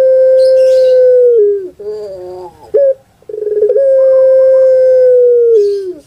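Puter pelung (domesticated ringneck dove, Streptopelia risoria) cooing: two long, drawn-out calls, each opening with a rolling burble, held on one tone for a second or two, then dropping in pitch at the end. Short coo notes come between the two long calls.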